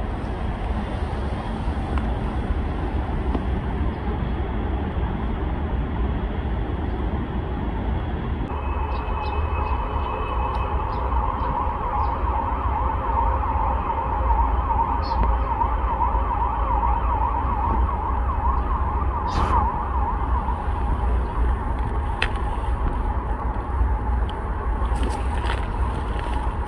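An emergency-vehicle siren wails from about eight seconds in, over a steady low rumble.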